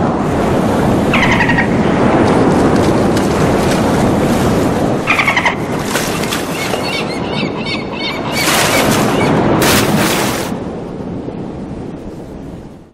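Loud rushing, rumbling sound effects from a mall-lobby animation show's soundtrack, with short high squeals about a second in and again about five seconds in, and sharp hissing swells near the end before it fades.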